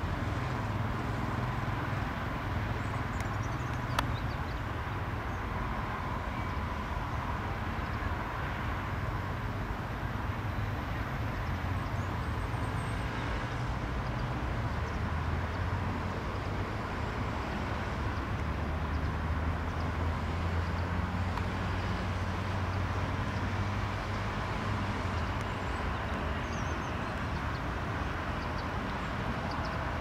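Steady low rumble of an Embraer Legacy 600's twin Rolls-Royce AE 3007 turbofans on final approach, with a faint thin whine above the rumble.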